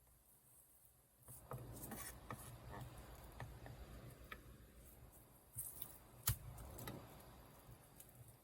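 Faint kitchen handling sounds during food preparation: a run of light clicks, taps and rubbing starting about a second in, with one sharper click about six seconds in.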